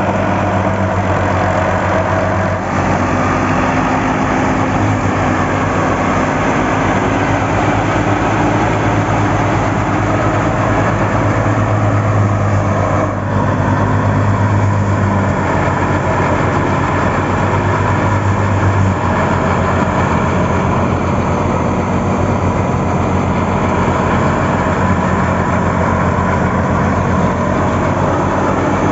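Wheat thresher running steadily at working speed, driven by shaft from an old Fiat 480 tractor, the tractor engine and the thresher drum making a continuous loud hum as wheat is fed through.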